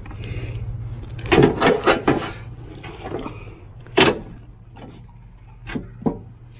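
Grass catcher bag and its metal frame being fitted back onto the side discharge of an Exmark Turf Tracer walk-behind mower: a rattling clatter of several knocks a little over a second in, one sharp knock at about four seconds as it seats, then two light clicks near the end as the mounting pin is handled.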